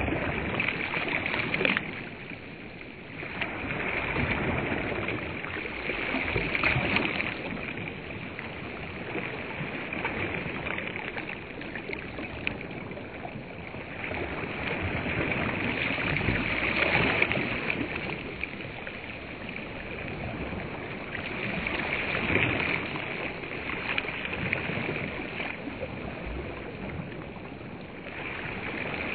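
Small waves lapping onto the sandy shore of a large reservoir, the wash swelling and fading every few seconds.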